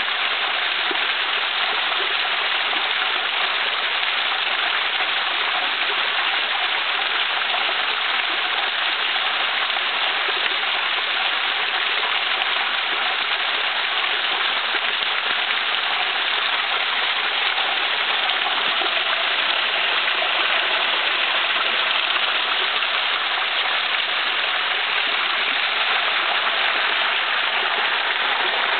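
Waterfall in thin streams and drips pouring over mossy rock and splashing onto the rocks and pool below, heard close up as a steady, even hiss of falling water.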